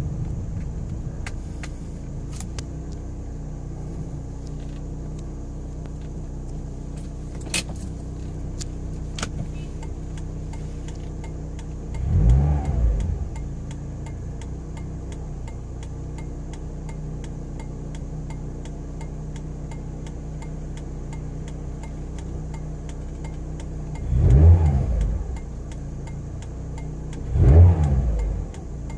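A 2011 Mazda MX-5 Miata (NC) four-cylinder engine idling steadily, blipped three times in short revs that rise and fall: once about twelve seconds in and twice near the end. The owner suspects this engine of a vacuum leak.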